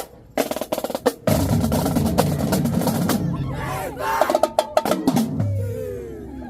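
Marching drumline playing: a few sharp snare hits, then a loud full-section passage with snares and bass drums, and a quick run of accented hits about four seconds in. Crowd voices start to rise near the end.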